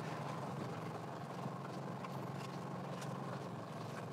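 A boat's engine idling steadily with a low hum and a few faint ticks.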